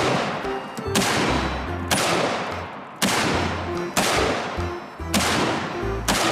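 A string of revolver gunshots, about one a second, each sharp report followed by a fading ring, over background music with a bass line.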